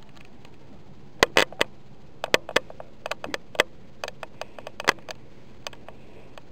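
A cluster of irregular, sharp clicks and taps that starts about a second in and lasts about four seconds, over a low steady hum.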